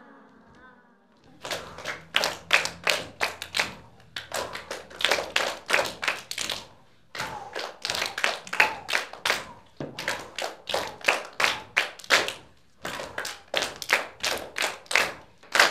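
A group of children and teachers clapping their hands together in a steady rhythm, about four claps a second, in phrases with short breaks between them.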